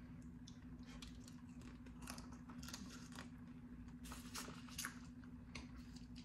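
Quiet close-up eating: scattered small clicks and mouth smacks as boiled blue crab is picked apart and its meat sucked from the shell, over a steady low hum.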